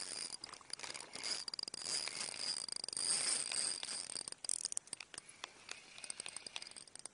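Spinning fishing reel and line handled close to the microphone: a dense run of clicks, rattles and scraping that thins out near the end.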